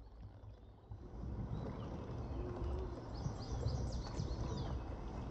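A songbird singing a quick run of short, high, falling notes about three seconds in, over a steady low rumble.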